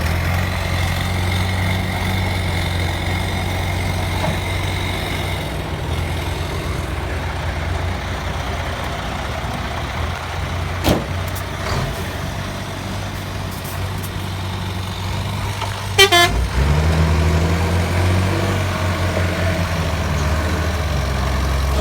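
Heavy truck engine running steadily while hauling a heavy load. About 16 seconds in there is a short falling squeal, and then the engine note changes and gets louder.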